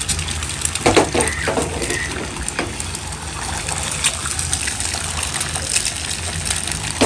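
Beaten egg whites sizzling and crackling in hot ghee on a nonstick flat pan, just after being poured in.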